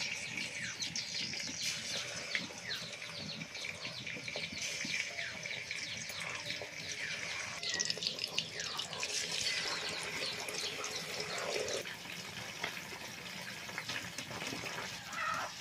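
Pieces of raw rohu fish frying in hot oil in a kadai, with a steady sizzle and many fine crackles and spits.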